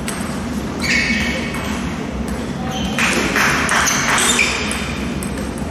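Table tennis rally: the ball clicking off the paddles and the table in quick knocks from about three seconds in, over steady background noise.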